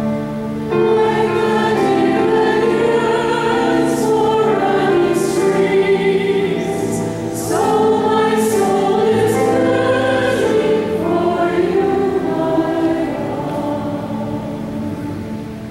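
A cantor leads a group of voices singing a liturgical chant or hymn in long held phrases. The singing tapers off near the end.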